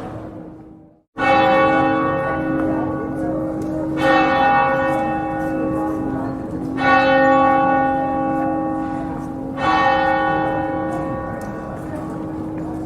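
Church bell tolling: four strokes about three seconds apart, each ringing on and slowly fading into the next. The sound dips to a moment of silence just before the first stroke.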